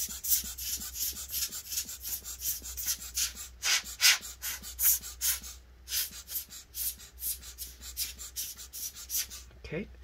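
Dust being cleaned out of a laptop heatsink: a quick, irregular run of short hissing strokes, two or three a second.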